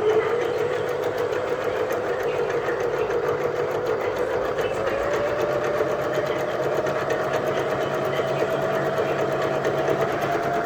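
Elna eXplore 340 sewing machine running continuously. Its motor tone rises slightly in pitch about halfway through as it speeds up a little.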